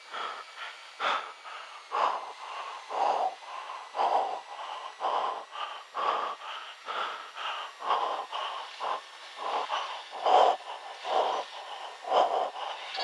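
A pilot breathing hard and fast, about one loud breath a second. This is the agitated breathing of a pilot hunting for a place to make a forced landing after his engine failed on takeoff.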